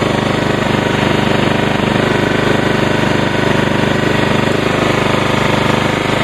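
Ryobi RYi2000 inverter generator's small four-stroke engine running steadily under an electrical load, heard loud from right beside it.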